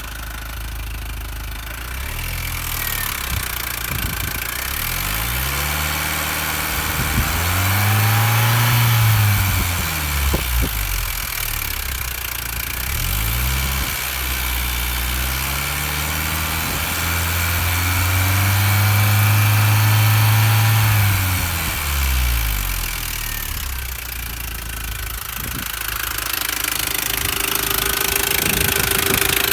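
R53 Mini Cooper S's supercharged 1.6-litre four-cylinder engine running, revved up twice from idle and let fall back, with the tapping, rattling noise the owner is recording.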